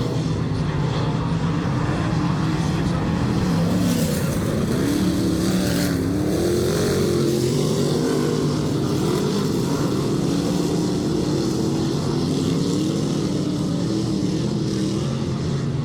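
Dirt-track race cars running laps around the oval, their engine notes rising and falling continuously as the cars circle.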